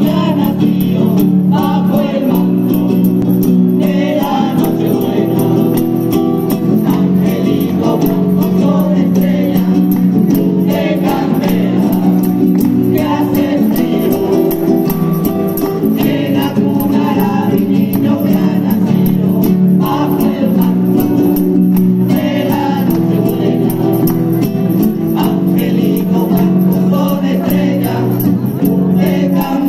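A rociero choir of men and women singing together to a strummed Spanish guitar, with the jingling of a tambourine and hand clapping keeping a quick beat.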